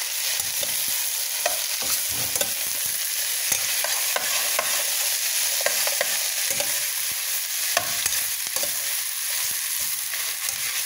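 Chopped cabbage, carrots, broccoli and pork frying in a metal pot with a steady sizzle. A utensil stirring the food scrapes and clicks against the pot many times.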